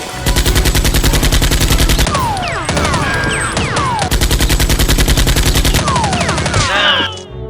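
Rapid automatic gunfire, about ten shots a second, in two long bursts with falling whistling tones between and after them. It cuts off suddenly near the end.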